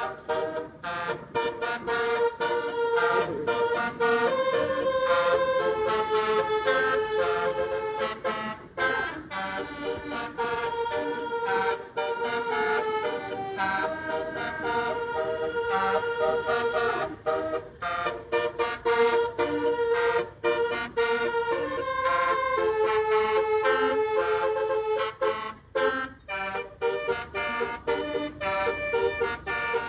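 Tour bus's basuri musical horn playing a melody: a string of loud held notes stepping between pitches, with short breaks between phrases.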